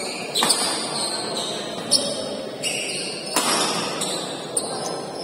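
Badminton rackets striking a shuttlecock in a fast doubles rally: a series of sharp hits roughly a second apart, five or so in all.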